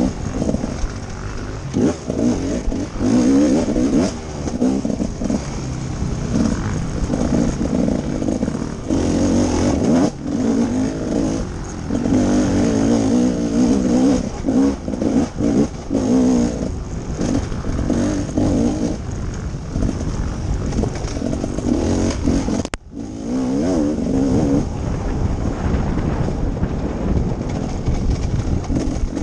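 Dirt bike engine revving up and down again and again as the throttle is opened and closed on a tight trail, heard from a helmet-mounted camera with wind and trail noise. The sound cuts out for an instant about three quarters of the way through.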